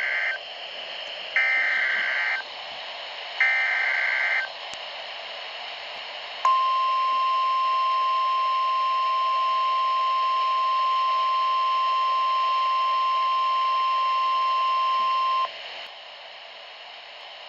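NOAA Weather Radio alert signal sent as the Required Weekly Test. Three short bursts of SAME digital header tones, each about a second long and about two seconds apart, are followed by the 1050 Hz warning alarm tone held steady for about nine seconds. A hiss of radio static runs underneath.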